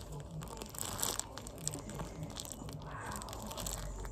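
Plastic food packaging crinkling and crackling in the hands, with small clicks and taps, as sambal is poured out onto the food. There are two louder rustles, about a second in and near three seconds.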